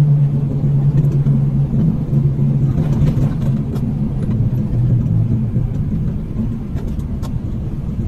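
A motor vehicle driving steadily: a low engine hum over road rumble, the pitch dipping and rising slightly as it goes.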